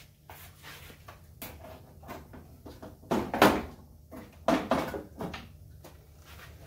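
Hand tools being handled at a workbench: a handsaw being put away and another picked up, a run of irregular knocks and clatters, the loudest about three seconds in and again a second and a half later.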